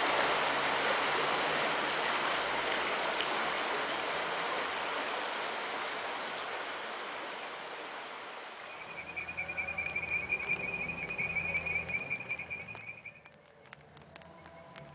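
Shallow stream rushing over rocks, a steady hiss of water that slowly fades away over about eight seconds. A steady, high-pitched, pulsing trill then comes in for about four seconds and stops suddenly.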